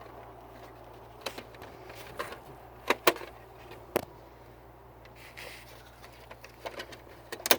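Small plastic doors and body parts of a WPL B36 scale RC truck being clicked shut and handled: a few sharp clicks and taps, the loudest a quick pair about three seconds in.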